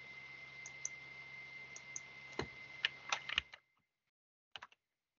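Scattered sharp clicks of a computer keyboard, with a quick run of them a little past the middle and two more about a second later, over a steady hiss with a faint high whine that cuts off after about three and a half seconds.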